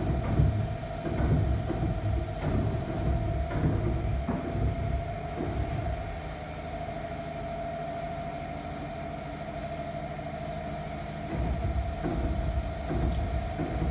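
Phone-handling rumble and footsteps of someone walking with the camera, with a few light knocks, over a steady mid-pitched hum. The rumble eases off about halfway through and picks up again near the end.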